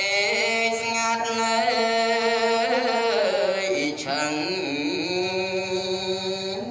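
A voice chanting Khmer Buddhist verses for a memorial rite in long, held melodic notes that waver and slide between pitches.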